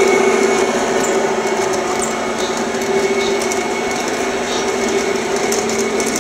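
Model trains running around their tracks: a steady mechanical whir of electric motors and gearing, with light clicking of wheels on the rails.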